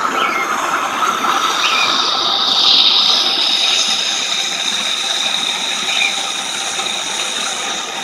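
Propane torch burning inside a small plaster-and-sand soup-can furnace: a steady rushing hiss with a high whistling tone in it, briefly louder about three seconds in.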